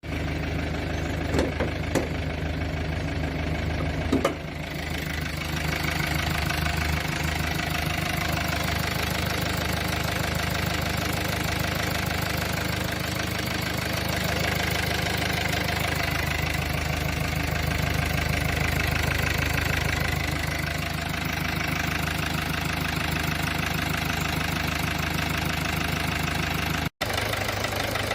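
Toyota 1ND-TV 1.4-litre four-cylinder common-rail turbodiesel idling steadily with diesel knock, a few sharp clicks in the first four seconds and a momentary cut near the end. The owner says the engine is not at 100%, with a blown head gasket and the wrong oil in it.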